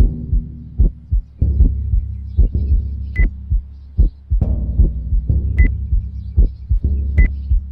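Sound-design soundtrack of a stop-motion film: a heartbeat-like pulse of low thuds, about two a second, over a steady low drone that starts with a hit. A short high beep sounds four times.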